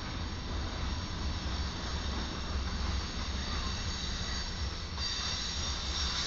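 Covered hopper cars of a freight train rolling past close by, with a steady low rumble of wheels on rail. A high wheel squeal runs over it and grows louder about five seconds in.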